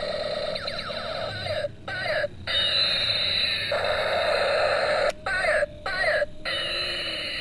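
Battery-powered Captain America toy gun playing its electronic siren-like sound effect, a warbling, wailing tone. The sound cuts off and restarts several times in short breaks, as the trigger is let go and pulled again.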